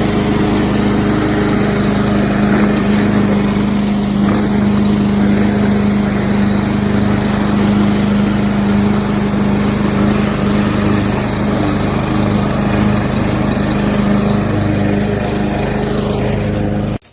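Gas walk-behind lawn mower's Briggs & Stratton single-cylinder engine running steadily, cutting off suddenly near the end.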